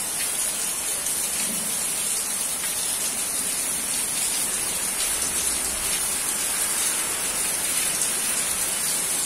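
Heavy rain pouring steadily onto a paved street, a continuous even hiss.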